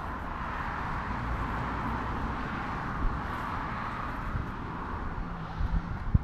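Road traffic passing: a steady rush of tyre and engine noise that swells and fades, over a low rumble.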